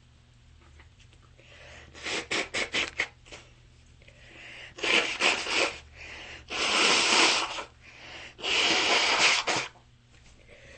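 A person with a runny nose sniffling and sneezing. A quick run of short sharp sniffs comes about two seconds in, then three louder, drawn-out bursts of about a second each.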